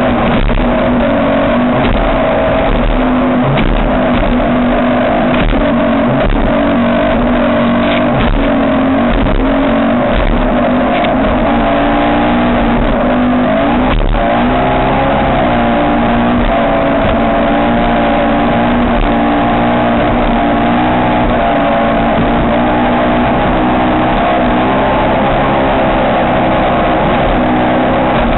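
Ski race boat's engine running hard at a steady high speed, loud and unbroken, its pitch wavering slightly, with a brief dip and rise about halfway through.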